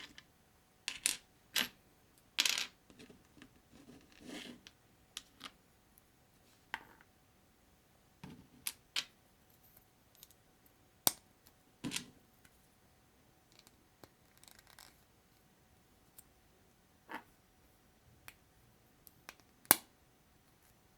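Small plastic Sembo building bricks being handled and pressed together: irregular sharp clicks and clacks, about fifteen of them, with a few short scraping rustles between them.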